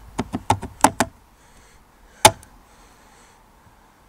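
A quick run of about five light clicks and knocks, then one sharper knock about two seconds in: a drilled polycarbonate piece being handled and fitted onto its mounting bolt.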